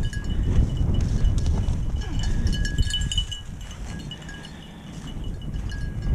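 A bird dog's collar bell jingling in short bursts at two pitches as the dog runs, over the low rumble of footsteps through grass.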